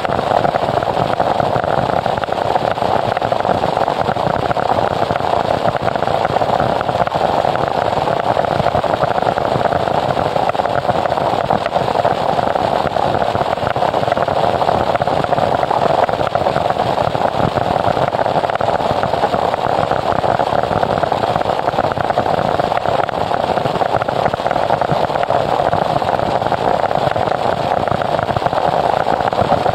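Noise music: a dense, unchanging wall of static with no beat, melody or pitch, strongest in the middle range.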